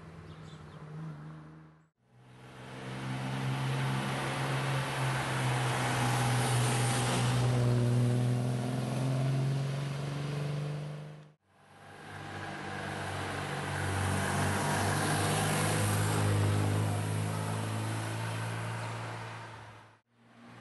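Classic sports car engines driving by one after another, each growing louder as the car approaches and passes. The sound cuts off abruptly between cars.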